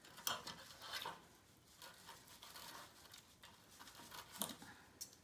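Knife and fork cutting into a piece of roasted chicken on a metal roasting tray, to check whether it is cooked: faint scraping, with a few soft clicks of the utensils.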